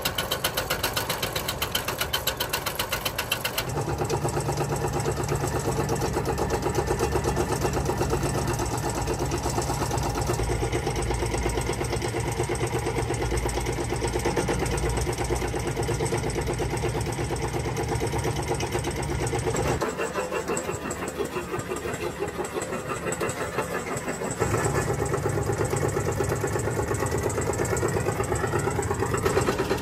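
A machine's engine running steadily with a fast, even beat. Its tone changes abruptly a few times.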